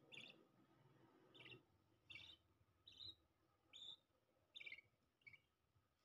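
Budgerigars chirping faintly: short single chirps, about one a second.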